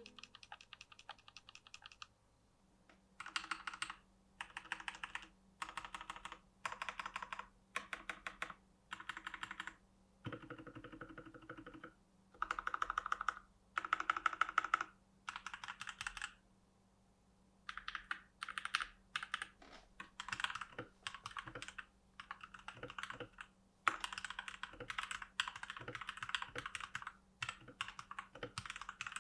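Keychron K4 mechanical keyboard with Gateron Brown switches, foam- and tape-modded, being typed on: short bursts of rapid keystrokes separated by brief pauses, with one deeper-sounding run of presses near the middle, then steadier continuous typing in the second half.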